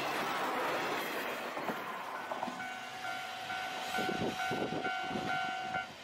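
Diesel railcar passing close by in a loud rush of wheel and rail noise. As it fades, the level-crossing alarm rings out its repeated two-tone electronic clang, about three strikes a second, while the wheels thump over the rail joints.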